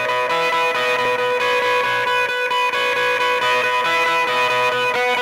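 Instrumental intro theme music with guitar, playing steadily with a regular beat.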